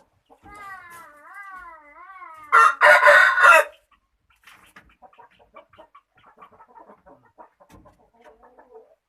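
Chicken calls: a wavering, pitched call lasting about two seconds, then a loud, harsh squawk of about a second, followed by scattered soft clucks.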